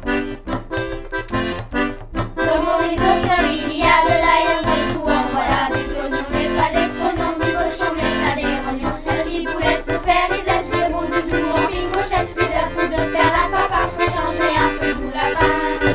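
Background music: an accordion-led children's song with a steady beat, growing fuller about two and a half seconds in.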